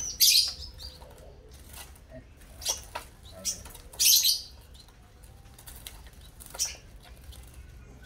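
Caged spiderhunters (pijantung) fluttering in a crowded cage: short bursts of wingbeats, the loudest just after the start and about four seconds in, with a few smaller flurries between.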